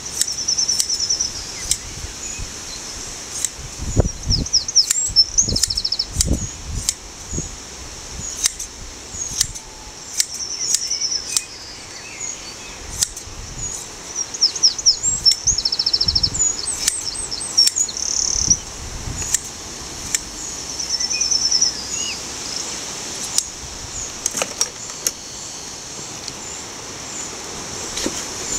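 Small birds chirping and trilling again and again, with scattered clicks of hand blade shears and a few low soft thumps as the sheep is handled.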